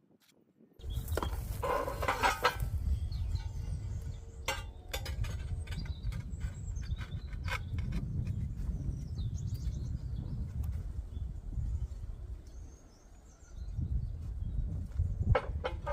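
Wind buffeting the microphone outdoors, with birds chirping faintly and scattered sharp clicks and knocks. It starts about a second in and dips briefly near the end.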